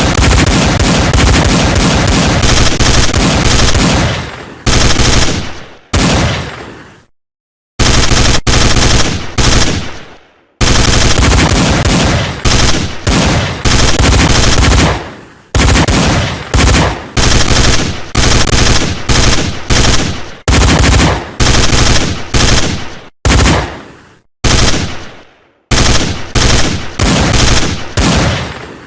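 Machine-gun fire sound effect, loud bursts of rapid shots lasting from under a second to several seconds, each trailing off in a fading echo, with short gaps between them. It is played as an alert sound by a forex trend indicator.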